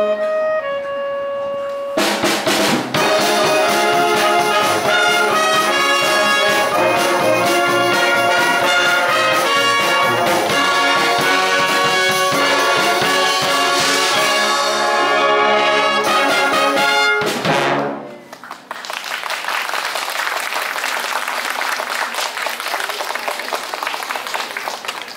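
Wind band with trumpets, trombones and drums playing a loud, full passage that ends abruptly about 18 seconds in, followed by audience applause.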